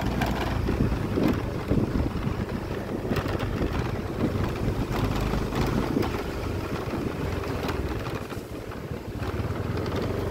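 Wind buffeting the microphone, a steady low rumble with some uneven gusts and no clear pitch.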